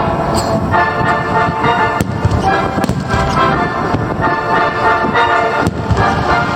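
Aerial fireworks bursting with a continuous low rumble and occasional sharp bangs, with music playing along.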